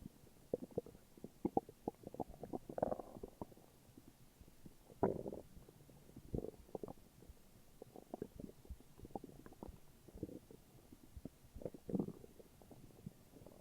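A person's stomach growling and gurgling: a string of short pops and bubbling rumbles, with longer gurgles about three, five and twelve seconds in.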